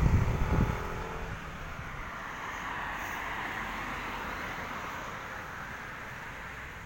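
Wind buffeting the microphone in the first second, then the steady noise of a jet aircraft passing overhead, slowly fading away.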